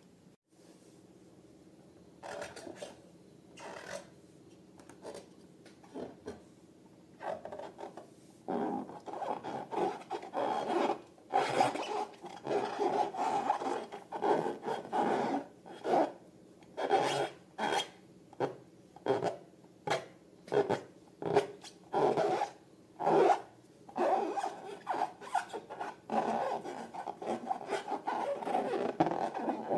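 Hands rubbing and working material in a run of short rasping strokes. The strokes are sparse and quiet at first and come steadily, about one or two a second, from about eight seconds in.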